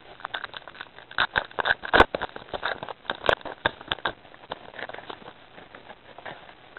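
Crinkling and rustling of a trading-card pack wrapper and cards being handled: irregular crackles, with the loudest about two seconds in.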